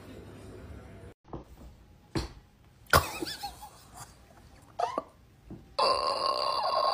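Scattered thumps and short squeaks from a black-and-white cat play-fighting on a rug, then a steady high-pitched squeal from about six seconds in.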